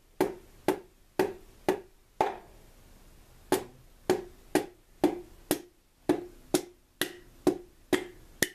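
Hammer's wooden handle tapping a piston down through a ring compressor into the cylinder bore of a Jeep 2.5L four-cylinder engine: about sixteen sharp, hollow knocks at roughly two a second, with a pause of about a second after the first five.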